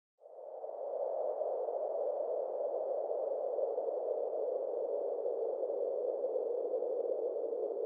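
Intro sound-design drone: a steady midrange hiss that fades in over the first second, with two faint high steady tones above it.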